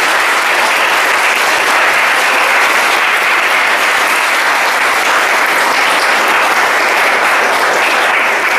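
Audience applauding: many hands clapping in a dense, steady wash.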